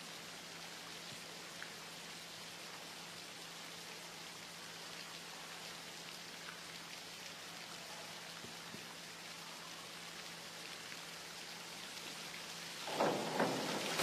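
Faint, steady hiss of an indoor pool hall's background noise with a low steady hum under it; about a second before the end a short, louder burst of sound breaks in.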